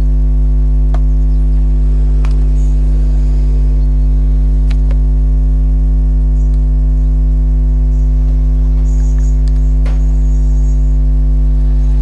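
Loud, steady electrical mains hum, a low buzz, with a few faint clicks from metal parts being handled during disassembly.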